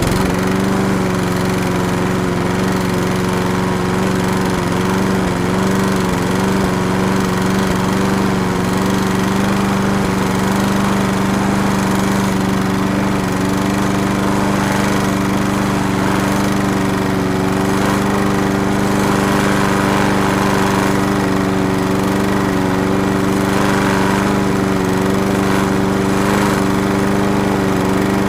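Lawn mower's small engine running at a steady speed.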